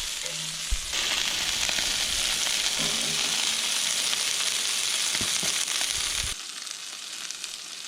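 Rabbit backstraps searing in a hot frying pan, sizzling steadily. The sizzle drops off suddenly about six seconds in.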